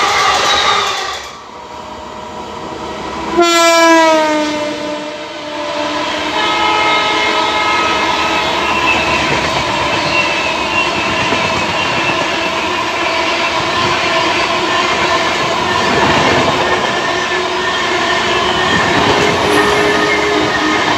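Express trains running past at speed. The end of one train rushes by, then about three and a half seconds in a WAP7 electric locomotive's horn gives a short blast, its pitch falling as it passes. A long steady rush of passenger coaches follows, with a faint ringing whine over it.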